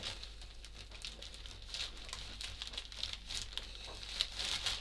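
Clear plastic bread bag crinkling and rustling in irregular bursts as a flatbread is lifted out of it and handled.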